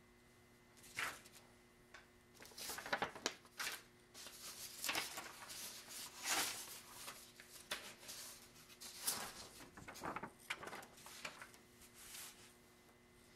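Sheets of paper rustling and sliding on a wooden tabletop as they are handled and rearranged, in irregular spells from about a second in until near the end, over a faint steady hum.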